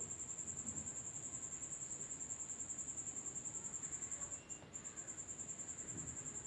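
Crickets chirping in a steady high trill of rapid, even pulses, which breaks off for a moment about four and a half seconds in.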